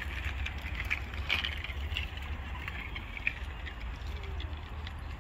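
Wind rumbling on the phone microphone, with scattered faint ticks and clicks.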